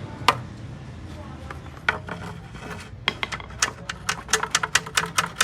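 Sharp metallic clicks of hand tools working on a car engine: two single clicks, then from about three seconds in a quickening run of clicks, about four or five a second.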